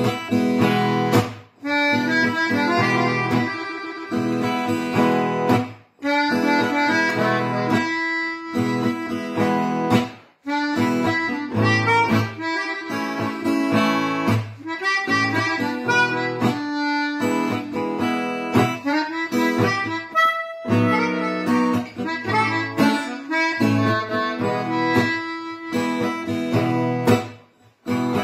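A small harmonica plays a held-note melody over strummed acoustic guitar, with brief pauses between phrases.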